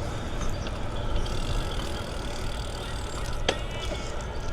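Steady low wind rumble and tyre noise from riding a Trek Dual Sport hybrid bicycle, with one sharp click that rings briefly about three and a half seconds in.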